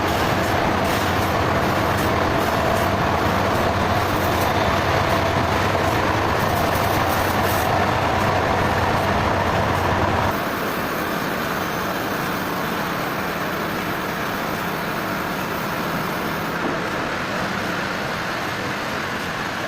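Sawmill machinery running with a steady mechanical noise; about halfway through, the deep low part of the sound cuts out suddenly and the noise carries on a little quieter.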